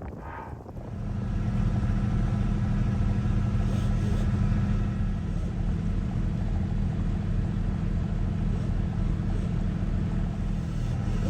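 An engine comes up to speed over about the first second, then runs at a steady, even pitch.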